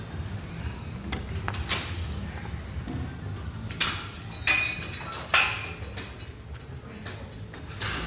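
Rotational load attachments being slid onto a bar, with scraping and several sharp knocks and clicks, the loudest about four to five and a half seconds in.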